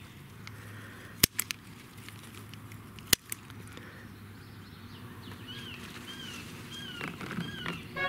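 Sharp snaps of cayenne pepper stems breaking as ripe peppers are picked by hand: three quick snaps about a second in and two more about three seconds in. A bird chirps the same short call again and again through the last few seconds.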